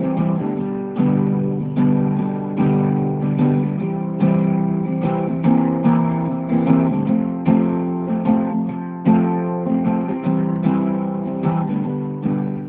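Background guitar music: strummed and plucked chords ringing on in a steady rhythm, fading out at the very end.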